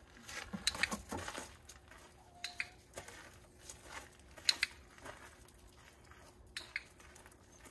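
A person and a dog stepping on gravel: irregular crunching footsteps, with a sharp click about four and a half seconds in.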